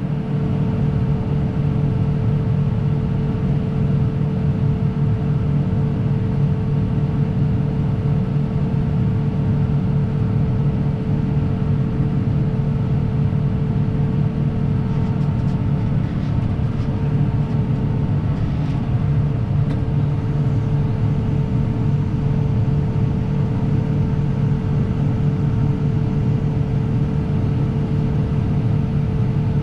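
Combine harvester running steadily while unloading wheat through its unloading auger: a constant low drone with a steady higher hum.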